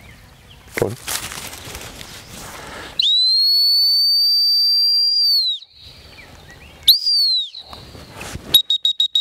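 Dog-training whistle blown by a handler to a retriever working at a distance: one long steady blast, then a short blast a little over a second later, then a rapid string of short toots near the end.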